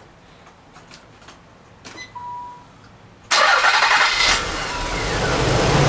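A few clicks and a short beep, then the 1993 Nissan 300ZX's V6 engine starts suddenly about three seconds in, catches at once and settles into a steady idle. The engine has a misfire on cylinder 4, which the owner traced to a bad injector.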